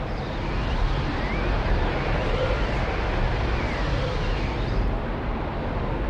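Swirling vortex sound effect: a steady, deep rushing noise with faint swooping sweeps that rise and fall in pitch, recurring through it.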